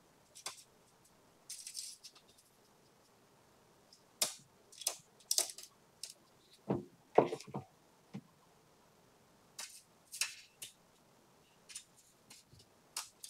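Metal spoon scraping and tapping while cake batter is spooned into foil baking cups on a baking tray: scattered soft clicks, scrapes and foil crinkles.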